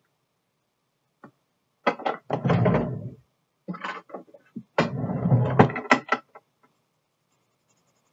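Two bursts of clattering knocks and dull thumps, the second longer and louder: drawing supplies being rummaged through and picked up.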